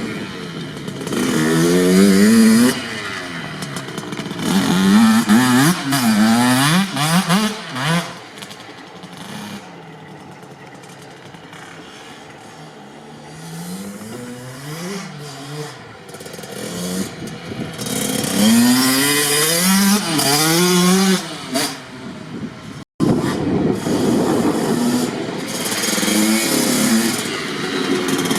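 Kawasaki KX65 single-cylinder two-stroke dirt bike engine being ridden. It revs up again and again as it pulls through the gears, goes quieter and steadier for a few seconds in the middle, then revs up repeatedly again. The sound cuts out for a moment about two-thirds of the way through.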